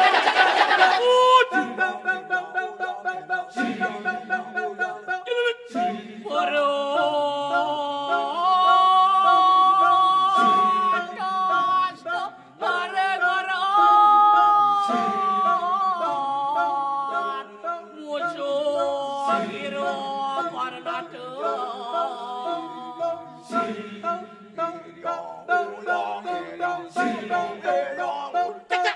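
Balinese kecak chant sung a cappella by a chorus of male voices: rapid, interlocking rhythmic chanted calls, with long held melodic sung notes rising over them through the middle.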